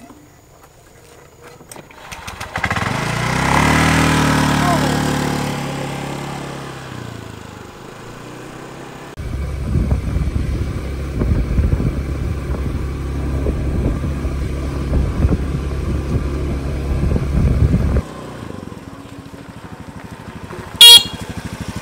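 A small motor scooter's engine starts up about two seconds in and pulls away, its pitch rising and then falling off. It then runs under way, heard from the rider's seat as a heavy rough rumble, before dropping quieter. A sharp click comes near the end.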